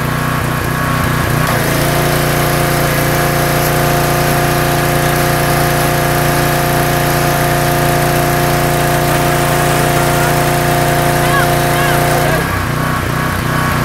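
Troy-Bilt 2800 PSI gas pressure washer engine running steadily. About two seconds in a steadier, higher hum joins as the high-pressure jet sprays at full power, and it drops away again about twelve seconds in.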